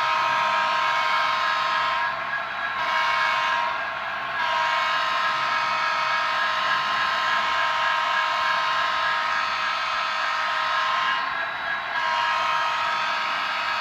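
Model locomotive's sound-system horn blowing a multi-tone chord through a small speaker. It sounds in long blasts with short breaks about two, four and eleven seconds in; the third blast lasts about seven seconds.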